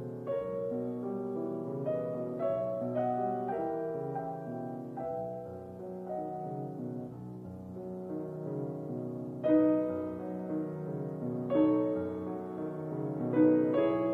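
Soft solo piano music, single notes and chords with louder chords struck about 9.5 and 11.5 seconds in.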